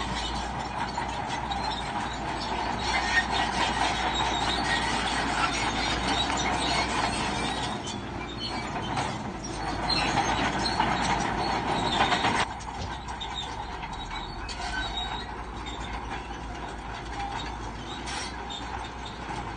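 Crawler bulldozer working: steel tracks clanking and squealing over the engine's running noise. The sound drops off suddenly about 12 seconds in and continues more quietly.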